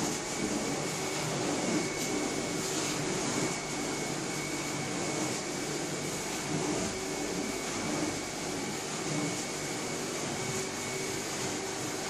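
Carpet-cleaning extraction machine running steadily, its vacuum drawing through the hose and floor wand as the wand is worked across the carpet, with a steady high whine over the rushing noise.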